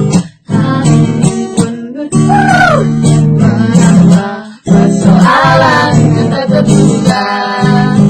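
Acoustic guitar strummed as an accompaniment while women sing a song together, with brief breaks in the music about half a second in and again about four and a half seconds in.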